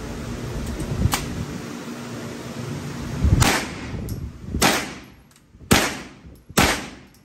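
Hi-Point 995 9mm carbine being fired semi-automatically: four shots roughly a second apart in the second half, after a single sharp crack about a second in.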